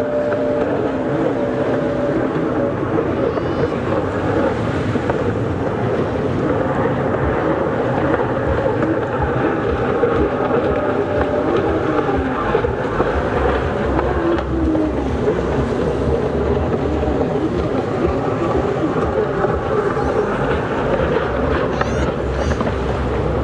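Racing jet skis (personal watercraft) running at high revs, their engine notes wavering up and down as they race around the course.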